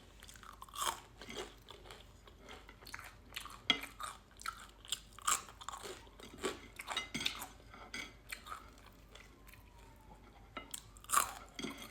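Someone chewing crunchy food, with a run of short, irregular crunches.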